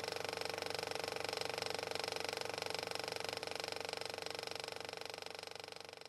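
A steady, rapid mechanical clatter that fades away near the end.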